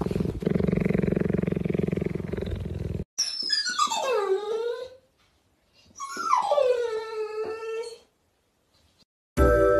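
A steady, low, pulsing rumble that cuts off abruptly about three seconds in, then two long animal cries, each starting high and sliding down in pitch over about two seconds, with a short pause between them.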